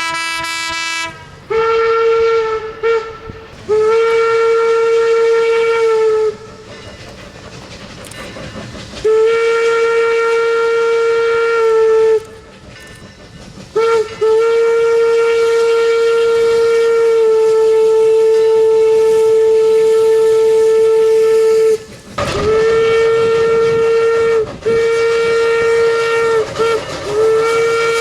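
Single-note locomotive whistle blown in a string of blasts on one steady pitch: a few short toots, then longer blasts, the longest held about seven seconds. A quieter rolling train rumble fills the gaps between blasts. A lower-pitched whistle note cuts off about a second in.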